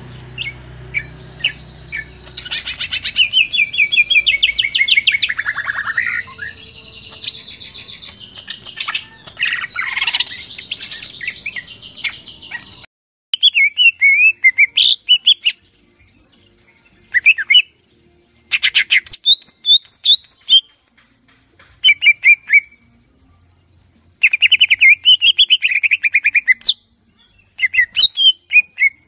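Cucak ijo (green leafbird) singing a fast, varied stream of chattering, whistled phrases. The song runs almost continuously through the first half. About halfway it changes abruptly to a cleaner recording, where it comes in separate bursts with short pauses between.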